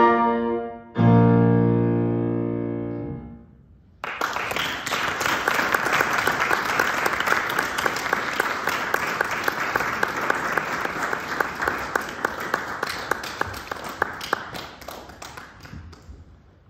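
Clarinet and piano finish the piece: about a second in, a final low chord sounds and dies away over about two seconds. After a short silence, audience applause starts and fades near the end.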